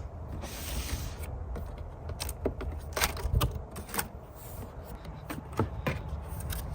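Packaging and gear being handled: scattered clicks, light knocks and a brief rustle over a steady low rumble of wind on the microphone.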